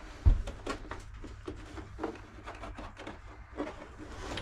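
Scraping and rubbing with scattered small clicks as a throttle cable is worked through a scooter's frame, with one low knock about a quarter second in.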